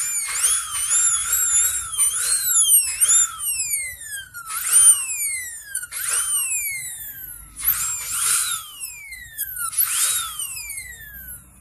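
Dental high-speed air-turbine handpiece (drill) running in about five bursts. Each burst is a high-pitched whine over a hiss, and its pitch glides down as the drill winds down after each press.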